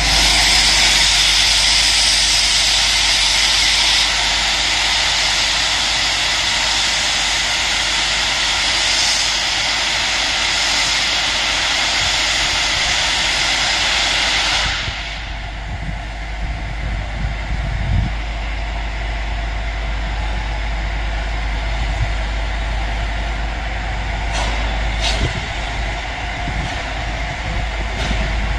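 Class A4 steam locomotive 60007 Sir Nigel Gresley blowing off steam: a loud, steady hiss that cuts off suddenly about halfway through, leaving quieter steady background noise.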